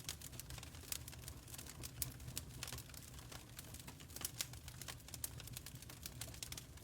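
Wood fire crackling in a fireplace: irregular sharp pops and snaps over a soft low rumble of the flames.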